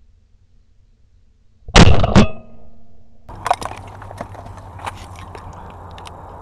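Two shotgun shots about half a second apart, very loud and sudden, with a short ringing after them. A steady rumble with scattered clicks follows.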